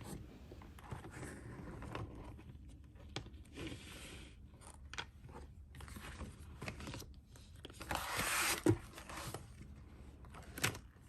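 Faint rustling and scraping of a paper planner and its packaging being handled. There is a louder rustle about eight seconds in and a couple of light taps near the end.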